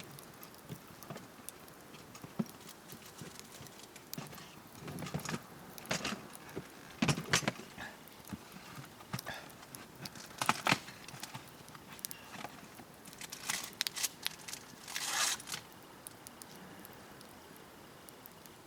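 Campfire burning: irregular crackles and snaps of wood in the fire, with a few louder clusters of pops in the middle.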